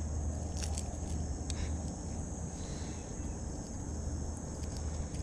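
Quiet outdoor ambience: a steady low rumble and a thin, steady high hiss, with a few faint clicks near the start.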